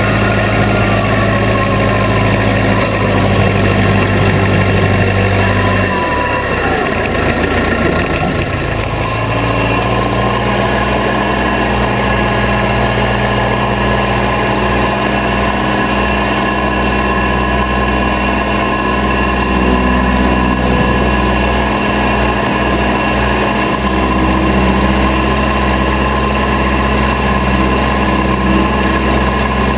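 1972 Case 580B Construction King backhoe's four-cylinder engine running steadily. Its speed shifts about six to nine seconds in, then it settles into a steady run again.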